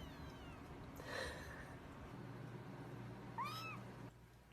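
Kitten meowing: a faint, falling mew at the start, then one short, clear meow that rises and falls about three and a half seconds in.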